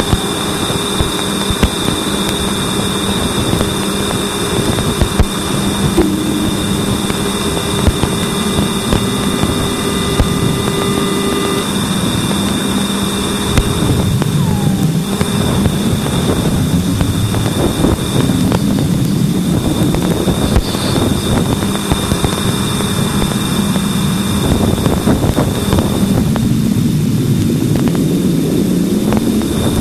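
Sonified spacecraft radio and plasma-wave recording: a dense crackling hiss with steady high tones. Several held tones cut off about eleven seconds in, and in the second half low tones waver, sliding up and down.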